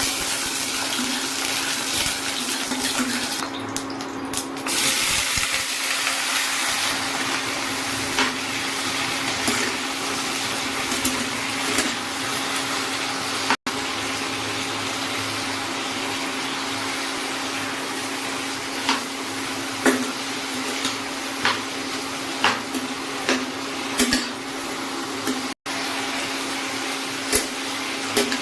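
Steady rush of running water, with sharp clinks of pots and utensils coming more often in the second half, over a low steady hum.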